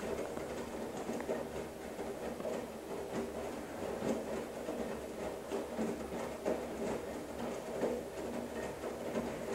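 Girbau commercial front-load washer running a hot wash, its drum turning wet laundry through soapy water. A steady motor hum sits under irregular sloshing and soft knocks.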